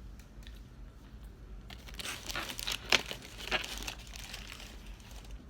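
Fast-food paper packaging crinkling and rustling for about two seconds in the middle, loudest near the midpoint, with faint chewing clicks before it.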